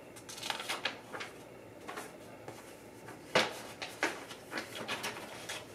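Paper sheets rustling as they are sorted and unfolded by hand, with scattered soft clicks and one sharper knock about three and a half seconds in.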